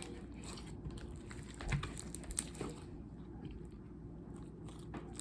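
Hands kneading and mixing a large mass of slime: faint sticky squelches and small crackling clicks, with a few louder clicks about two seconds in.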